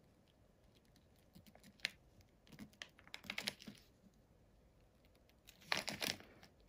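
Light clicking and tapping of plastic nail tips and long fingernails as tips are handled and pressed into the fingers of a silicone practice hand, in a few short bursts about two, three and six seconds in.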